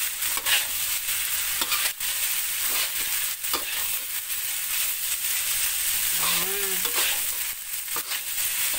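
Metal spatula stirring and tossing fried rice in a hot metal wok: a steady sizzle with frequent scrapes and clinks of the spatula against the wok. This is the last stir-fry of seafood nasi goreng as it nears done.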